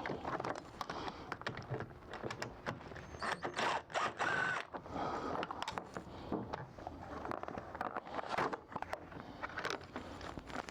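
Clicks, scrapes and rattles of a Dodge Ram seat's plastic side shroud and clips being pried and worked loose, with a brief squeak about four seconds in.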